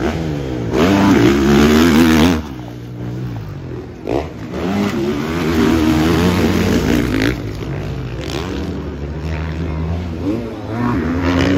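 Motocross dirt bikes racing past, their engines revving hard, the pitch climbing and dropping as they accelerate and shift. The loudest pass comes about a second in and cuts off after a second and a half, another bike revs by in the middle, and a third starts near the end.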